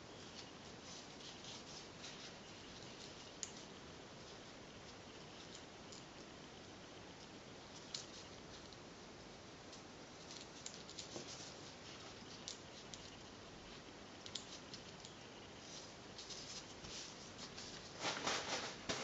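Faint handling sounds: gloved fingers rustling and small metal clicks as screws are turned by hand into a pit bike oil pump cover, over a steady hiss. A louder scuffing rustle comes near the end.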